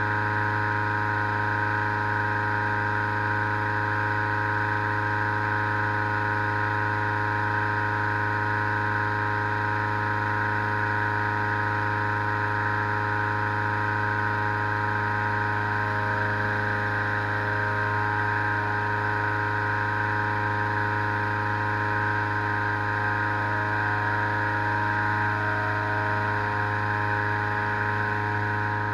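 Petrol-engined balloon inflator fan running at a constant speed, blowing cold air into a hot-air balloon envelope.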